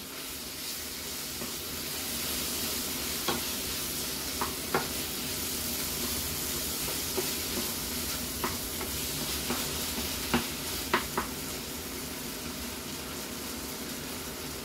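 Shrimp and potatoes sizzling steadily in a frying pan while a wooden spatula stirs them, with a few sharp clicks of the spatula against the pan.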